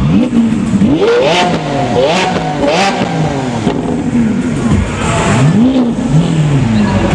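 A performance car's engine revved in a series of quick throttle blips: three sharp revs about one to three seconds in, each with a crackle of exhaust pops as it drops, then several smaller blips.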